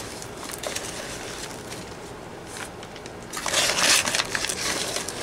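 Paper cement bag rustling and crinkling as a hand scoops dry Portland limestone cement out of it, with the loudest rustle about three and a half seconds in.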